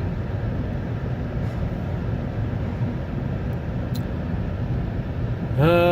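Steady low rumble of a 2008 Chevy Tahoe's engine and tyres, heard from inside the cabin while driving on snowy roads. A man's voice starts right at the end.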